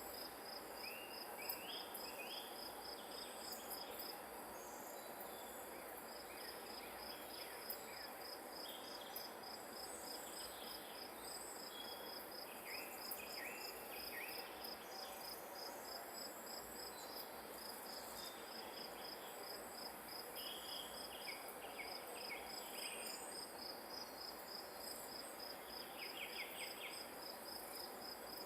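Field cricket-type grass insect trilling in a steady, evenly pulsed high-pitched rhythm over a soft outdoor hiss, with scattered short chirps now and then.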